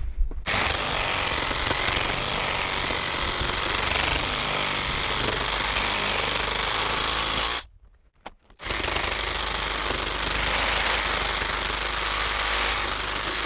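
Power saw running as it cuts through a log, a loud steady buzzing rasp; it stops briefly a little past halfway, then starts again and runs on.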